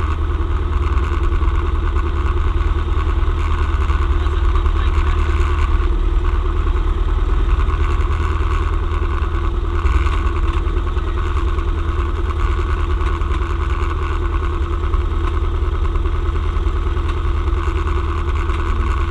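Cessna 172M's four-cylinder Lycoming engine running steadily at low taxi power, heard from inside the cockpit.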